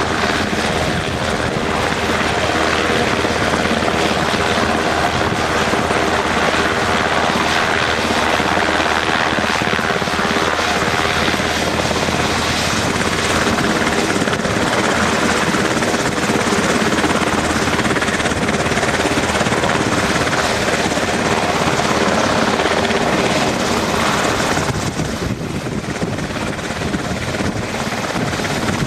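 Coast Guard HH-60J Jayhawk helicopter running on the ground as it taxis, its twin turboshaft engines and spinning main rotor making a loud, steady roar with a steady whine in it. The sound eases slightly for a moment near the end.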